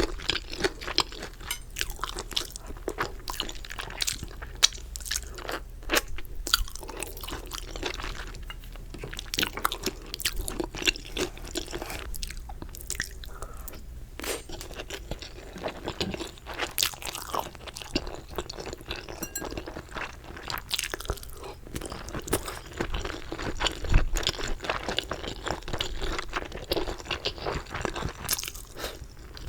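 Close-miked chewing of crunchy chicken: a dense, irregular run of crisp crunches and crackles with wet chewing between them, a few sharper bites standing out.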